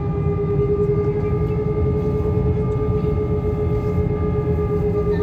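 Jet airliner's engines running at taxi power, heard inside the cabin: a steady whine over a low rumble.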